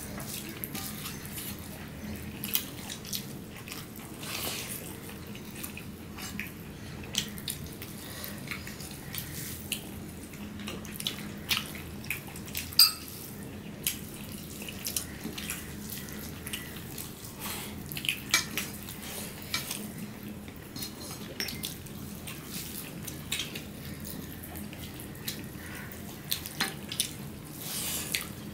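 Eating sounds close to the microphone: fingers squishing rice and curry on the plates and wet lip smacks while chewing. They come as a scatter of short, irregular wet clicks.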